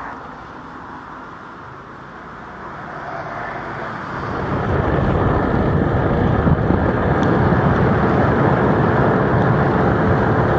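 Vehicle driving along a road: a steady noise that swells about four seconds in and stays loud.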